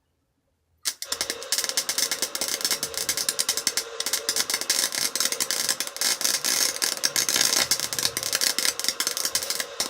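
Chicago Electric wire-feed welder's arc crackling and sputtering steadily as a bead is laid, starting about a second in, with the wire speed turned down to 3.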